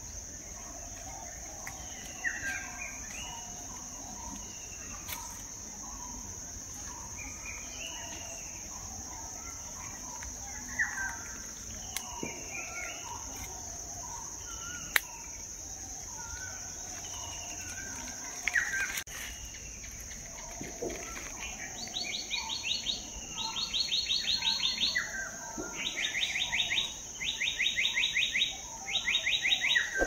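Forest birds calling with many short, falling chirps over a steady, high insect drone. From about two-thirds of the way through, a loud rapid trill repeats in five bursts of about a second each.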